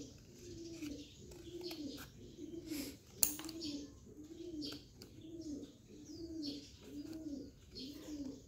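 A dove cooing over and over, one short low coo about every three-quarters of a second. Scissors snip through stiff cardboard, with a sharp click about three seconds in.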